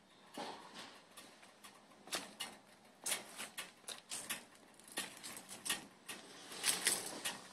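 Handling noise from a handheld camera: irregular clicks, light scrapes and rustles, with no engine running.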